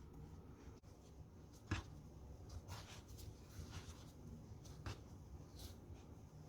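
A few soft, short scraping or brushing strokes of hands or utensils working at a counter, over a low steady hum, the sharpest about two seconds in.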